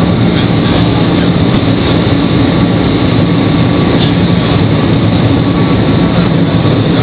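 Cabin noise inside the Shanghai Maglev train cruising at over 420 km/h. A loud, steady rush of air and low rumble runs without letting up.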